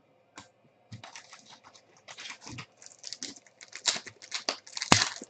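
Trading cards being handled and sorted by hand: a quick, irregular run of rustles, slides and taps, with one sharp click near the end.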